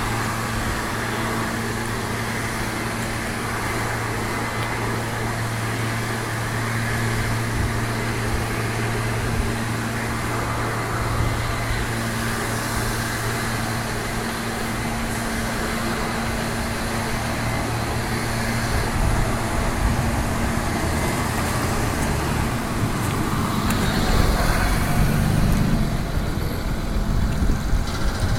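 A motor vehicle's engine running with a steady low hum over road and wind noise. About two-thirds through the hum gives way to a rougher low rumble that grows louder near the end.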